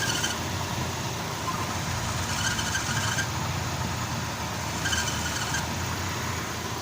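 Car engine idling, with the power steering belt giving three short high squeals: the belt slipping under the load of the power steering pump.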